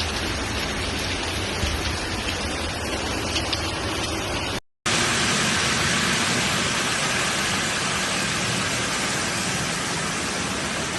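Steady water noise of a storm flood, heavy rain and running floodwater. About halfway through there is a brief dropout to silence, and after it the noise is a little louder and hissier.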